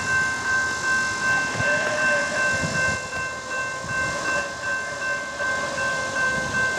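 Railroad grade-crossing warning bell ringing steadily at about two strikes a second as a train approaches. A distant locomotive horn is held from about a second and a half in.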